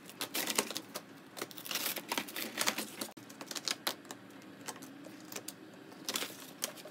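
Old floor covering being peeled up by hand, making irregular runs of quick crackles, clicks and scrapes as the brittle layers tear loose.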